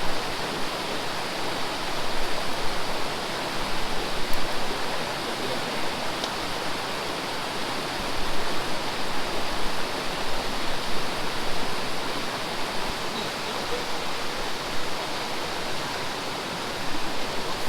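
A stream running: a steady rush of water.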